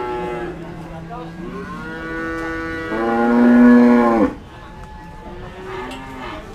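Cattle mooing: a call tailing off at the start, a low moo, then a long moo that grows louder and cuts off suddenly about four seconds in. A fainter moo follows near the end.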